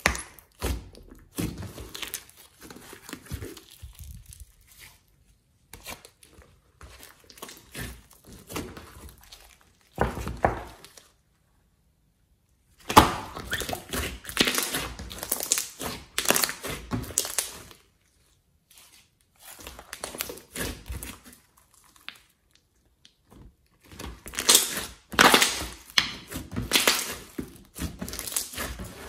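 Hands squeezing, pressing and stretching a large lump of slime, giving bursts of wet crackling clicks and pops, with a few silent pauses of a second or two between handfuls.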